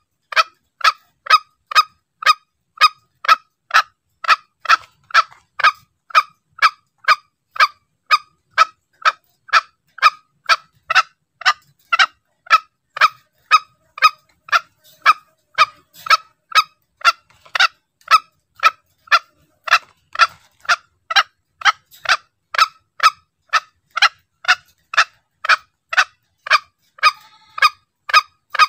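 Green junglefowl lure call: one short, pitched call note repeated steadily, a little over twice a second, on an even loop.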